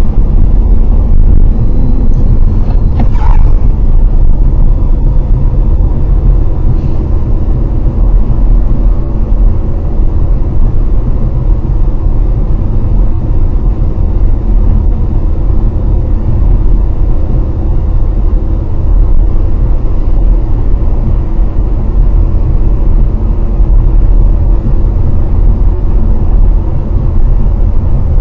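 Motor vehicle's steady low rumble, unchanging throughout, with faint steady tones above it.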